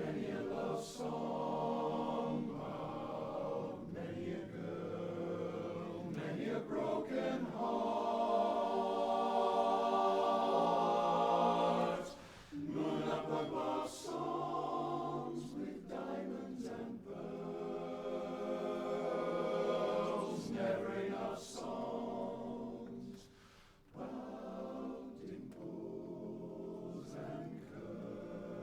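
Male barbershop chorus singing a cappella in close four-part harmony, holding long sustained chords, with two brief breaks between phrases.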